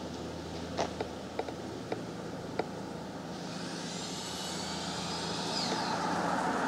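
Street traffic: a steady low engine hum, then a vehicle approaching and growing louder through the second half. A few light knocks sound in the first half.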